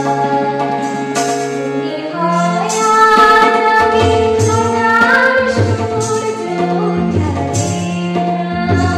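A woman sings a Bengali song to her own harmonium, with a tabla keeping a steady rhythm beneath.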